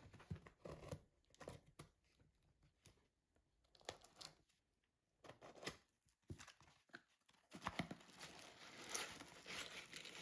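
Faint rustling and tearing of paper or plastic packaging by hand, in scattered short bursts that turn into a steadier crinkling about seven and a half seconds in.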